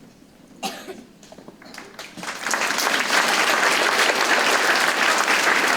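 An audience of schoolchildren applauding, starting about two seconds in and quickly swelling to steady, loud clapping. A short knock comes just before, about half a second in.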